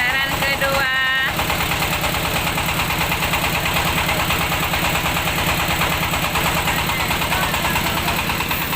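The engine of a mobile rice milling machine runs steadily with an even, fast chugging pulse. A voice is heard briefly near the start.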